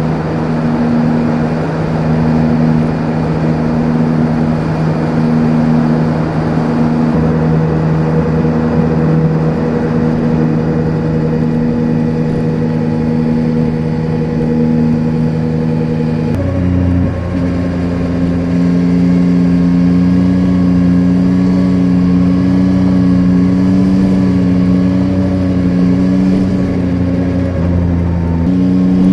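Yamaha Tracer 9's 890 cc CP3 inline-three engine running at a steady cruise, heard raw from the bike, with one gear change about halfway through.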